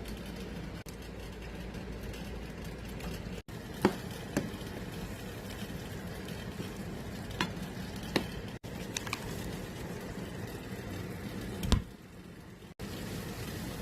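Ground chicken giniling in tomato sauce sizzling in a pan, with a spoon clicking against the pan several times as it is stirred.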